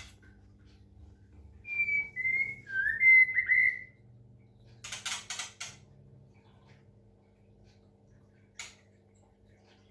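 White-rumped shama singing a short phrase of loud, clear whistled notes that glide up and down, followed about a second later by a few short harsh rasping sounds and, near the end, a single click.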